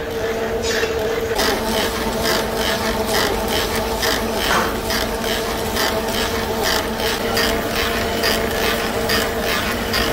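Metal-turning lathe running and cutting a metal workpiece: a steady hum with a regular clatter of ticks about three times a second.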